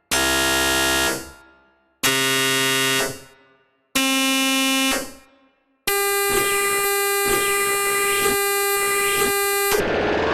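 Black MIDI music played on synthesized instruments: three dense, many-note chords struck about two seconds apart, each dying away, then from about six seconds in a held wall of notes with sweeping pitch glides, turning into a rising sweep near the end.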